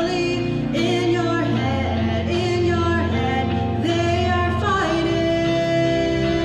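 A woman singing a slow melody into a microphone, with sustained notes held over a steady instrumental accompaniment.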